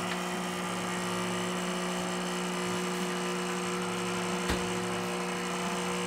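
Nuova Simonelli Oscar II espresso machine's vibratory pump buzzing steadily while pulling an espresso shot, with one brief knock about four and a half seconds in.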